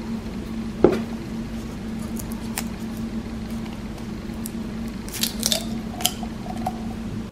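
Plastic flip cap and foil seal of an ink bottle being handled and peeled off. There is a sharp click about a second in and a few quick clicks and crackles near the end, over a steady low hum.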